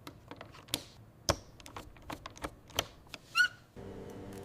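Plastic arcade buttons clicking as they are pressed and seated into the control panel: a series of sharp, irregular clicks. A short warbling squeak comes about three and a half seconds in, and a low steady hum starts near the end.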